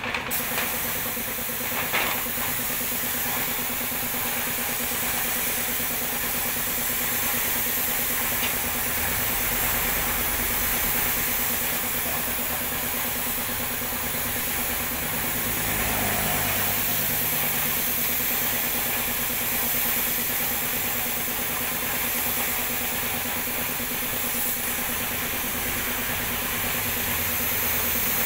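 Compressed-air paint spray gun hissing steadily as it sprays paint onto a metal gate frame, with an air compressor running steadily underneath.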